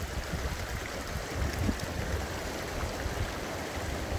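Mountain stream rushing and splashing over stones, a steady rushing noise with a low rumble coming and going underneath.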